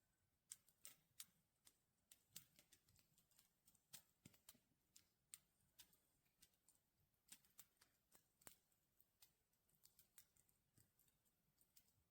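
Near silence with faint, irregular clicks and ticks scattered throughout, several a second at times.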